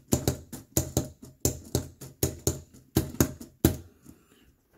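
Hand-cranked LEGO Technic hammer mechanism: the plastic hammer arm is lifted by the cranked pieces and dropped again and again. It makes sharp plastic clacks, two or three a second, that stop shortly before the end.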